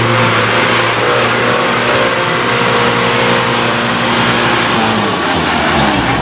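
Huina radio-controlled dump truck's electric drive motor and gears whining steadily under load as it pushes through mud, the pitch dropping as it slows about five seconds in.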